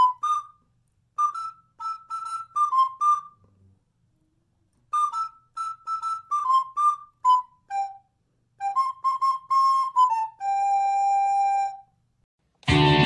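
Background music: a solo flute melody played in short phrases of quick notes with pauses between them, ending on a long held note. A louder guitar tune cuts in just before the end.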